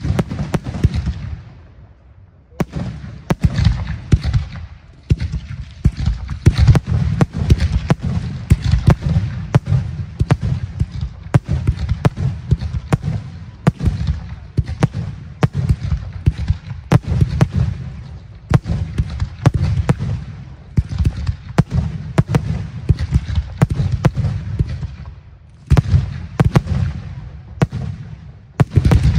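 Aerial firework shells bursting in a rapid barrage of booms and crackling. The barrage eases for a moment about a second in, then runs on densely, with a brief lull near the end before the bursts resume.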